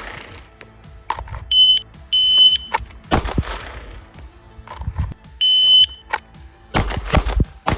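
A shot timer beeping with a high, steady tone, and a Glock 43X 9mm pistol fired in sharp, loud shots, the loudest about three seconds in and a quick string of several near the end.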